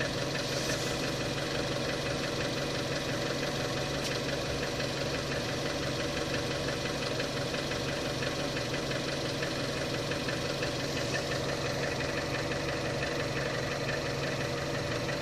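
Opel Astra J 1.4 turbo petrol four-cylinder idling steadily, with a fast, even ticking running through it: the unexplained extraneous noise the owner hears at idle.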